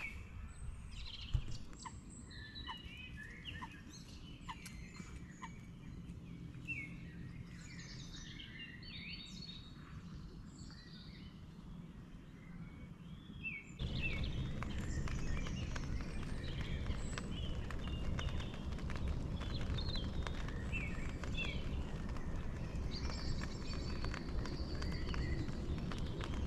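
Several birds singing and calling, many short chirps and warbles. About halfway through the background abruptly turns louder, with a steady low rumble under the continuing birdsong.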